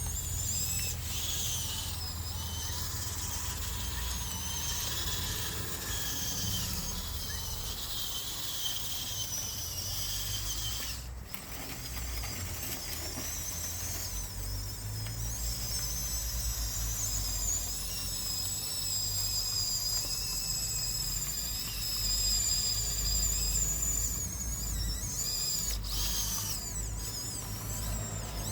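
Small electric motors and gearboxes of a Huina 1554 RC bulldozer whining as it drives and pushes sand, the high whine rising and falling in pitch with the throttle. It drops out briefly about eleven seconds in.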